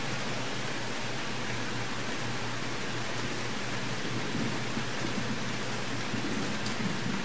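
Steady hiss of background noise with a faint low hum underneath.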